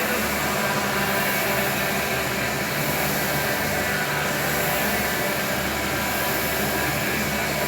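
Air-resistance rowing machine in use: the flywheel's steady whoosh, swelling slightly about every two seconds with each stroke.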